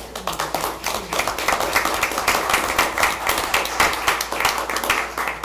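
A small group applauding: many overlapping hand claps for about five seconds, fading out near the end.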